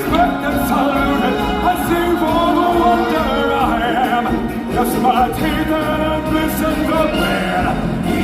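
Stage-show music with singers' voices, a group singing over a full, steady accompaniment.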